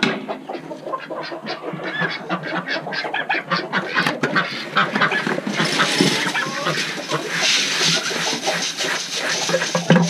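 Ducks and chickens calling over one another in a pen, many short quacks and clucks in quick succession, with a spell of hissing, rustling noise from about halfway to near the end.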